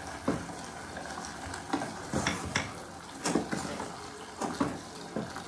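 A utensil stirring broccoli and spices in a hot pot on the stove: irregular scrapes and knocks against the pot over a steady faint sizzle.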